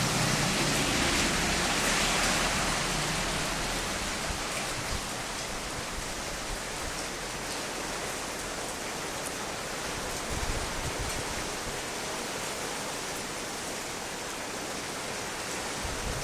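Heavy rain falling and pattering on surfaces, a steady hiss that is a little louder over the first few seconds.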